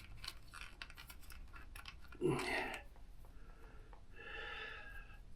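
Faint clicking and scratching of a plastic cable tie being threaded and pulled tight, with a short louder rustle about two seconds in.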